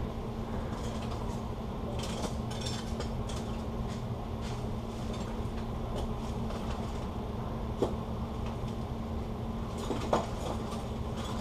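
Steady low hum of indoor store background, with scattered light clicks and knocks; two sharper clicks come in the last few seconds.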